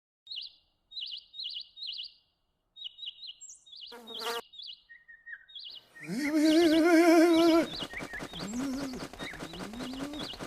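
Small bird chirps, short and repeated, for the first several seconds, with one brief louder sound about four seconds in. About six seconds in, a louder pitched sound held for over a second with a slight waver, then short rising glides over a fast ticking.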